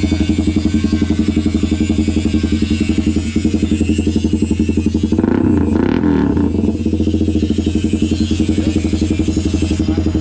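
Honda CBR150R's single-cylinder engine running at a steady idle through a newly fitted SC Project exhaust, with a brief louder, rougher burst about five seconds in.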